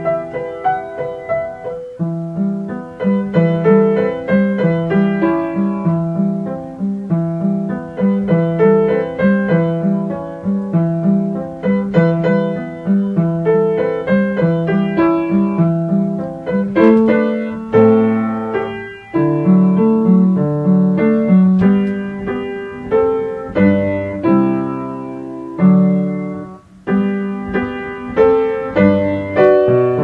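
Background piano music: a melody over a steady repeating bass line, with each note struck and fading.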